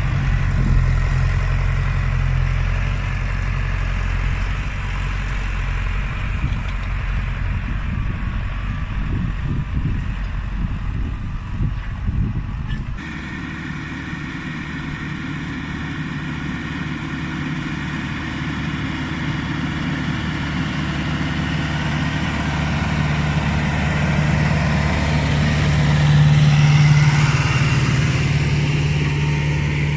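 Case CX80 tractor's diesel engine running steadily while ploughing. About thirteen seconds in, the sound changes abruptly and loses its deepest rumble. The engine is loudest a little before the end.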